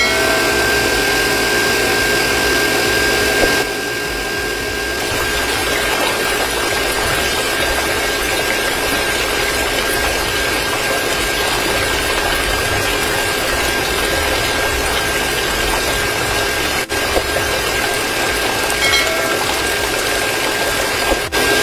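Small electric motor of a homemade toy water pump running steadily with a thin high whine, water rushing and splashing under it.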